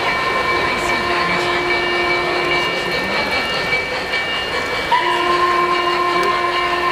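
O-scale model steam locomotive's onboard sound system blowing its steam whistle as the train runs past: one long chord-like blast that ends about three seconds in, and a second that starts about five seconds in, over the steady rolling noise of the train on the track.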